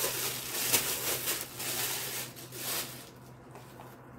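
Thin plastic bag crinkling and rustling in several bursts as a ball of soft dough is pulled out of it, stopping about three seconds in.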